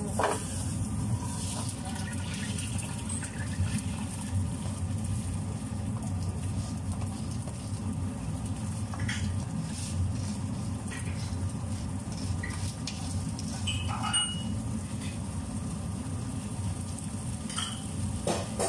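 Metal cooking pots being handled on a gas stove: a few short clinks and knocks of a steel steamer pot against the cooking pot, over a steady low rumble.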